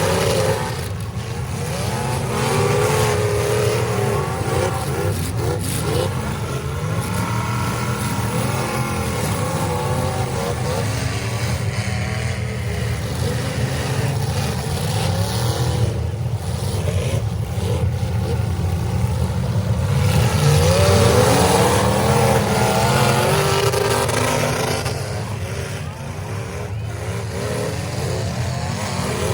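Several demolition derby cars' engines revving and running together, their pitches rising and falling as they accelerate and back off.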